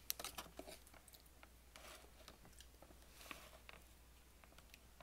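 Faint eating sounds: a run of small clicks from metal forks on cake and plate in the first second, then soft chewing of cake with a few scattered clicks.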